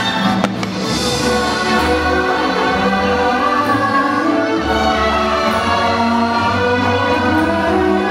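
Orchestral fireworks-show soundtrack with a choir singing. There is one sharp firework bang about half a second in.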